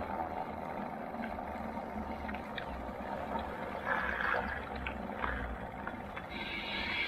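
Wind rumbling unevenly on the microphone over the steady rolling noise of an electric fat bike on a trail, with a few light clicks and rattles.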